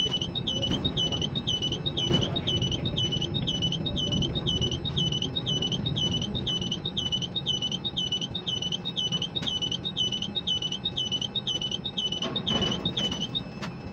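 Ship-to-shore quay crane running its trolley and spreader, a steady low machinery rumble under a high electronic warning beep repeating about twice a second. The beeping stops near the end.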